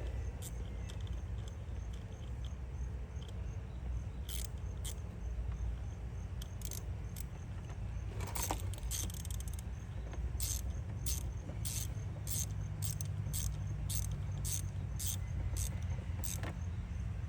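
Hand ratchet clicking in short runs as it tightens the coil-pack screws on a Mercedes C300's 3.0 L V6. The clicks are sparse at first and then come at about two or three a second from about halfway, over a steady low rumble.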